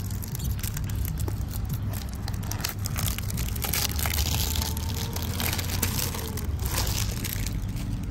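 Clear cellophane shrink-wrap being picked at, torn and pulled off a perfume box, crinkling and crackling throughout and busiest in the middle.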